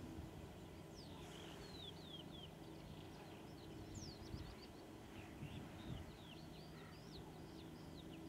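Many short, falling whistled bird calls and chirps, over the faint steady drone of a distant DB class 218 diesel locomotive hauling its train.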